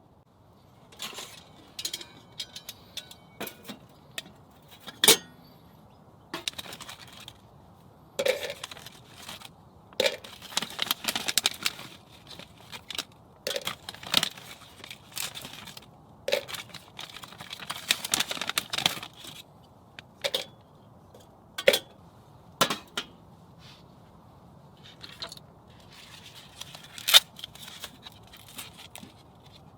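Camping gear being handled: irregular clinks and taps of small hard objects, with two longer stretches of scraping and rustling and a few sharp, louder knocks.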